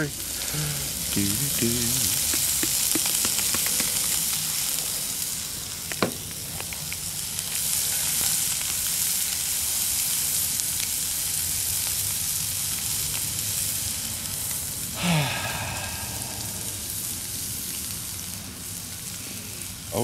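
Pheasant breast goujons sizzling in hot fat in a cast-iron skillet: a steady frying hiss, with a single sharp click about six seconds in.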